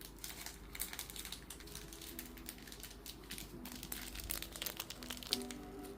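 Plastic snack wrapper crinkling and crackling as it is handled, with many irregular small crackles.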